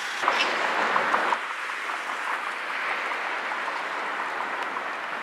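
Street traffic noise: a steady hiss of passing cars and tyres. It is louder, with a few faint ticks, for the first second or so, then drops suddenly to a steadier hiss.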